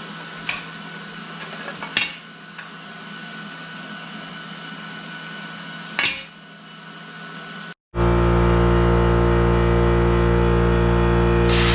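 Three sharp metal knocks, spaced a second or more apart, over a low shop hum. After a brief cut to silence comes a loud, steady mechanical hum, and a hiss joins it near the end.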